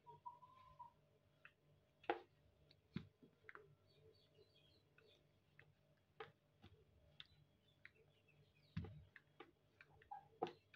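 Faint, irregular clicks and light knocks of a rolling pin working dough on a tiled counter, with a few louder knocks spread through.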